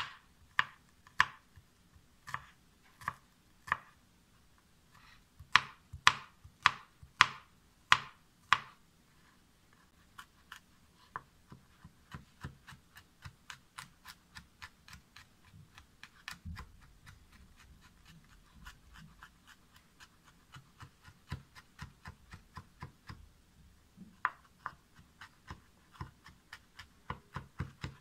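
Kitchen knife chopping garlic cloves on a bamboo cutting board. Loud, separate strikes come first, then a quicker run of lighter taps, about two or three a second, as the garlic is minced.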